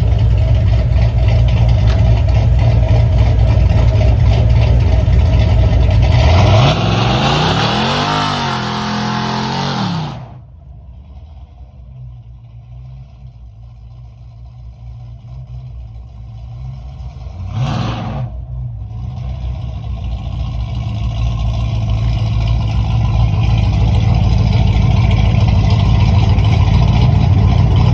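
Chevy's Blueprint V8 with a loud exhaust, running and then revved hard about six seconds in, its pitch climbing for several seconds under a wide hiss that fits spinning tires. About ten seconds in the sound drops away sharply; a short rev follows near the middle, and then the engine grows steadily louder again.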